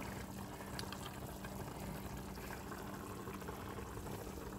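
Pots of string beans and tomatoes simmering on a stovetop: a faint, steady bubbling hiss over a low steady hum.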